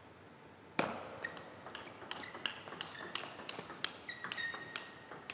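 Table tennis rally: the ball clicks sharply off the bats and the table in quick alternation, about three hits a second, some with a short ringing ping. It starts about a second in with the serve.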